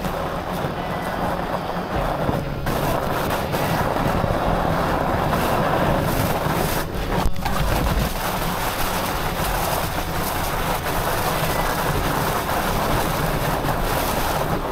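Steady rush of wind noise on an action camera's microphone as a fat bike rides downhill over snow, with an uneven low rumble from the bike underneath.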